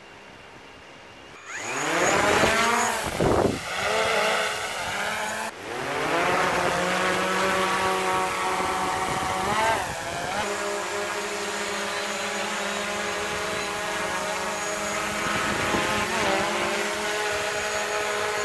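DJI Mavic Pro Platinum quadcopter's motors and propellers spinning up with a steeply rising whine about a second and a half in as it lifts off. It then settles into a steady hover hum, with brief pitch wobbles around three, ten and sixteen seconds in. This is the version built to run quieter than the original Mavic.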